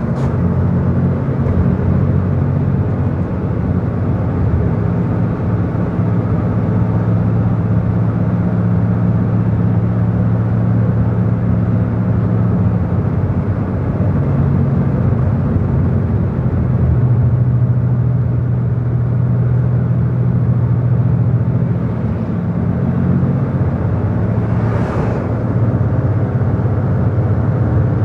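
Engine and road noise of a vehicle descending a mountain highway, heard from inside the cab. It is a steady low engine hum whose pitch shifts a few times. A brief hiss comes about three quarters of the way through.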